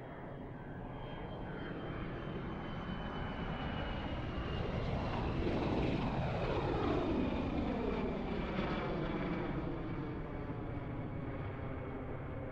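Fixed-wing airplane flying past: the engine noise swells to its loudest a little past halfway and then eases off, with a high whine that slowly falls in pitch as it passes.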